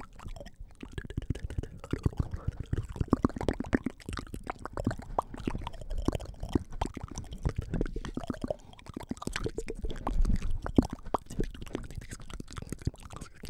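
Close-miked wet mouth sounds: rapid clicks, smacks and pops of lips and tongue, made with hands cupped around the mouth right at the microphone, as in ASMR inaudible whispering.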